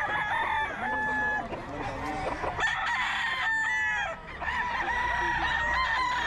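Several gamefowl roosters crowing, one call overlapping the next throughout, with the odd cluck.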